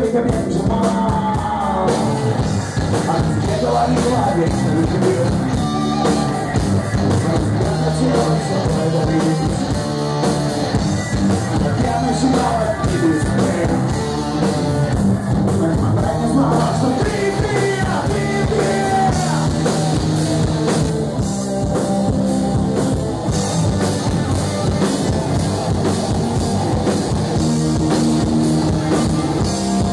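Live rock band playing: electric guitar, bass guitar and drum kit, with a man singing.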